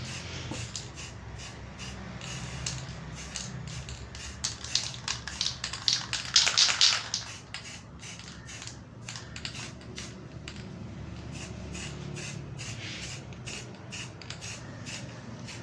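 Aerosol spray can hissing in short bursts on a fridge compressor, the longest and loudest burst lasting about a second and a half in the middle. Light rustling and clicks come in between, over a low steady hum.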